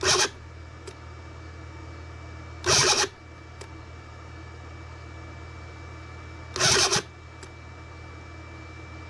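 Electric starter cranking a Cison L4-175 model four-cylinder flathead engine, a steady low hum, broken three times by short loud pops a few seconds apart as the engine tries to fire without catching. The cranking stops right at the end.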